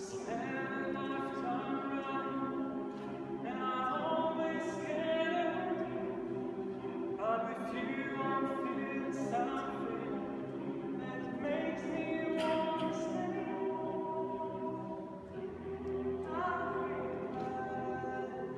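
Boys' choir with men's voices singing a cappella: held chords, with a new phrase starting about every four seconds as the upper voices enter.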